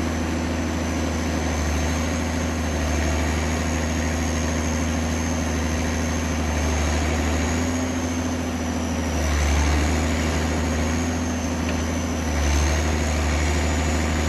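Heavy machine's engine running steadily under a thin, high, steady whine. The engine swells briefly twice, about nine and twelve seconds in.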